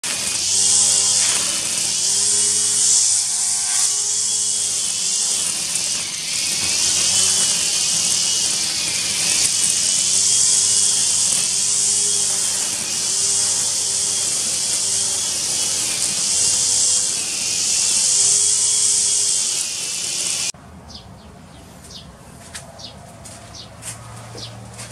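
Motorised grass trimmer running at a high whine over a loud hiss, its pitch dipping and recovering again and again as it bites into the grass. About twenty seconds in it cuts off abruptly, leaving much quieter short chirps and light clicks.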